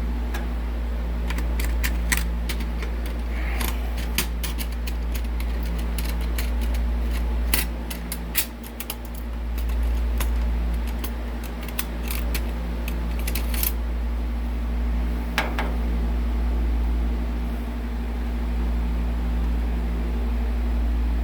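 Drill bits being sorted and handled: scattered sharp metallic clicks and clinks, busiest in the first two-thirds, over a steady low machine hum.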